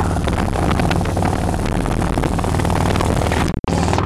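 Harley-Davidson Ultra Classic's V-twin engine running while the sidecar rig rides along the street, heard close up from the sidecar. The sound cuts out briefly near the end.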